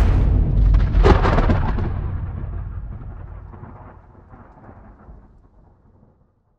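A deep trailer impact about a second in, followed by a thunder-like low rumble that steadily dies away over about five seconds.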